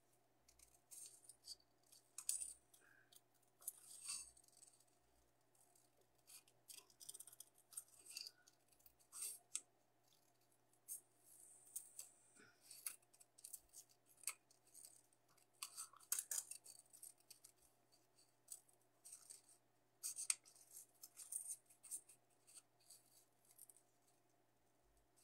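Small scissors snipping around a printed paper template: quiet, short, irregular snips in small clusters.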